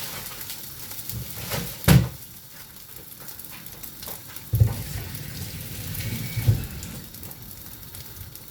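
Food sizzling in a frying pan on the stove, a steady hiss, with three knocks from handling the pan or utensils, the loudest about two seconds in.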